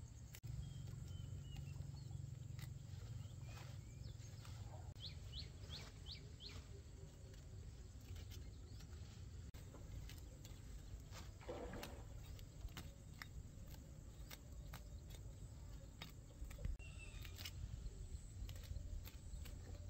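Faint rural outdoor ambience with a low rumble and scattered small clicks, and a quick run of about five short, high, rising bird chirps about a third of the way in. About halfway through comes one brief, louder, rougher sound.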